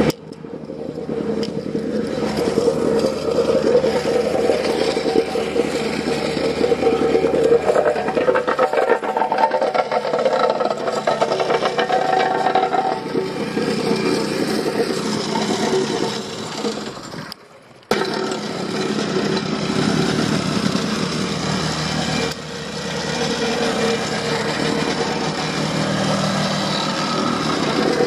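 An engine running steadily at a constant speed, with a brief dropout about seventeen seconds in.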